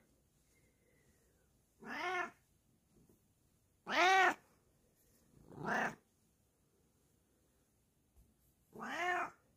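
Bengal cat meowing four times, each meow a short call that rises and falls in pitch, spaced a second or more apart.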